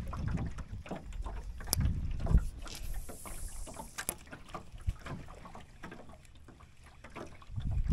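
Small fishing boat on open water: water lapping against the hull and wind gusting on the microphone, with a few sharp knocks about two and four seconds in. The rumble fades toward the end.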